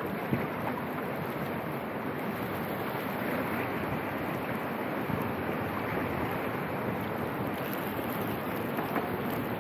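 Steady rush of moving creek water around a kayak, mixed with wind on the microphone.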